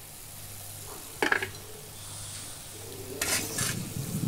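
Stainless-steel slotted spoon clinking and scraping against a steel kadai as fried flour chips are scooped out of hot oil, with a sharp clink about a second in and a cluster of clinks near the end. Under it the oil sizzles faintly: the bubbling has mostly died down, the sign that the chips are crisp and done.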